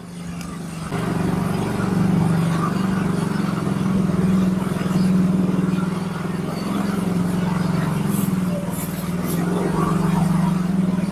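Motorcycle engine running steadily at low speed, a low hum that picks up about a second in.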